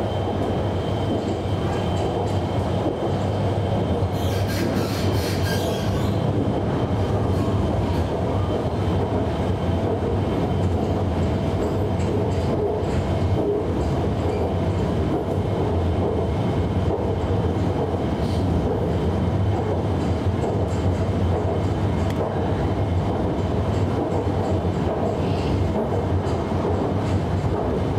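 Running noise inside a Hanoi Metro Line 2A train car between stations: a steady rumble with a low hum. A brief high-pitched hiss comes about four seconds in.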